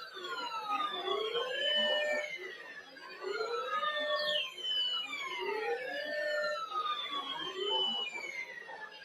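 Siren-like sweeping tones, several at once, some gliding down from high and others gliding up before holding steady. The pattern repeats about every two and a half seconds.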